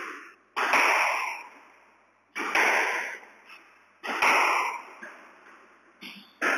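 Squash rally: the ball smacked by rackets and hitting the court walls, in four sharp pairs of strikes about every second and a half to two seconds. Each strike echoes and rings out in the enclosed court.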